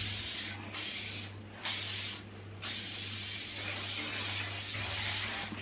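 Aerosol hairspray can spraying: three short bursts, then one longer spray of about three seconds.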